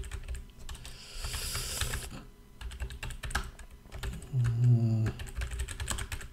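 Typing on a computer keyboard: a run of quick keystrokes as Vim editor commands are entered. About four seconds in a short hummed vocal sound, pitch falling, rises over the typing.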